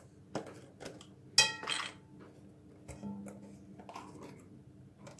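Quiet kitchen handling of a plastic crème fraîche tub over a glass mixing bowl as the tub is opened: a few light clicks and taps, with one short ringing sound about a second and a half in.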